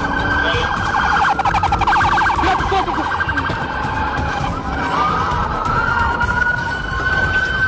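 Police car siren sounding: a steady wail that turns into a fast warble between about one and a half and two and a half seconds in, then goes back to slow rising and falling tones. A constant low rumble runs underneath.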